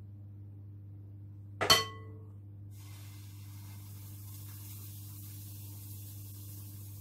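A single sharp ringing clink of a ladle against the glass batter bowl, then pancake batter sizzling in a hot frying pan, a soft steady hiss that starts near the middle.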